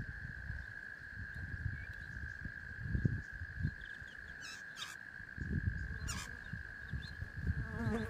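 Steady insect drone on one held pitch, over a low rumble that comes and goes, with a few short high chirps about four to five seconds in and again around six seconds.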